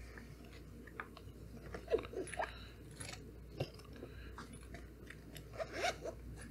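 Faint rustling, crinkling and light clicks of a knife box and its packaging being opened and handled, in scattered short sounds.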